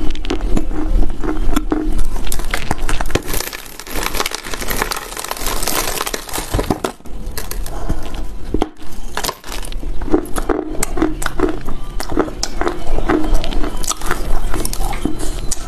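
Close-miked biting and chewing of a dry lump of Chinese loess clay: a run of sharp crunches and crackles, thick in the first few seconds and again from about two-thirds of the way in, with quieter chewing between.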